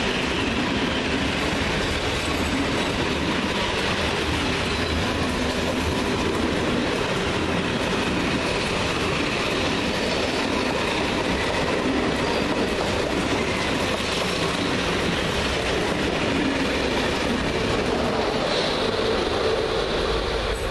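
Freight train's loaded open wagons rolling past at close range: a steady, loud rumble and clatter of wheels on rail. Near the end the electric locomotive at the rear of the train goes by, adding a steady hum.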